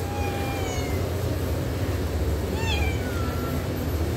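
Kitten meowing twice: thin, high cries that fall in pitch, the first at the start and the second about two and a half seconds in, over a steady low rumble.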